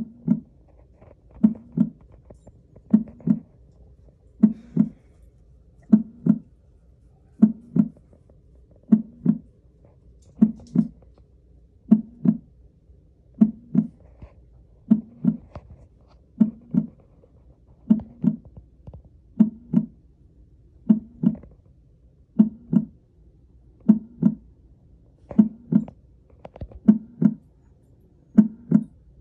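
Recorded heartbeat sound: a low double lub-dub thump repeating slowly and evenly, about once every second and a half.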